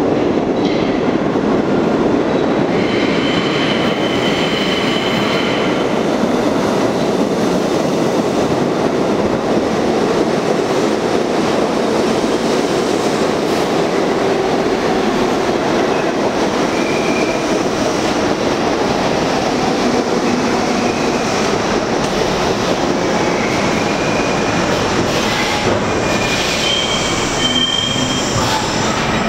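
R42 subway train running into the station alongside the platform, with a steady rumble of wheels on rail. High wheel squeal rises about three seconds in, and another squeal comes near the end as the train brakes to a stop.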